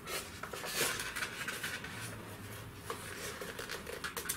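Handling noise from a plastic helmet with a foam camera box as it is lifted and pulled on: irregular rubbing and scraping with a few light clicks.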